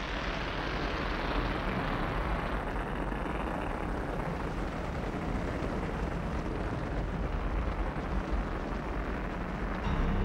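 Steady rushing roar of erupting lava fountains and flowing lava, with a deep rumble underneath. Near the end a deeper, steadier rumble takes over.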